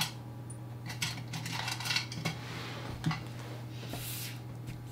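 Light metallic clicks and clinks of drawing pins being handled and pressed in to fix a paper sheet down, with short bursts of paper rustling. A steady low hum runs underneath.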